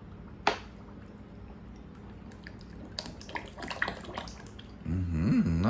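Kefir pouring in a stream from a plastic jug into a large stainless-steel pot of okroshka, a soft liquid pouring sound, with a single sharp knock about half a second in.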